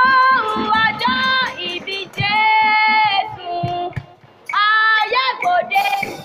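A single voice singing a praise song into a microphone in short phrases of held notes, with a break about four seconds in. Sharp percussive taps sound along with it.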